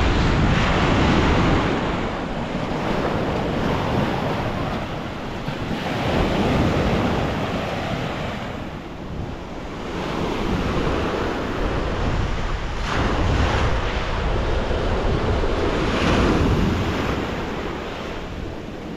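Sea waves washing onto the beach, the surf swelling and easing every few seconds, with wind buffeting the microphone.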